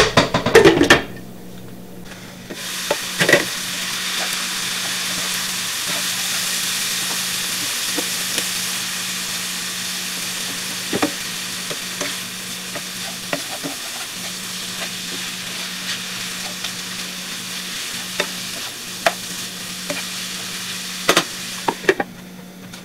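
Sliced onions with garlic and spices sizzling steadily as they sauté in a non-stick frying pan, stirred now and then with a spatula that scrapes and taps against the pan. Near the end a glass lid clinks onto the pan and the sizzle drops quieter.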